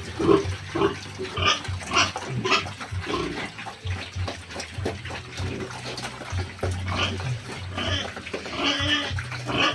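Pigs grunting and squealing in many short calls, over a steady low hum.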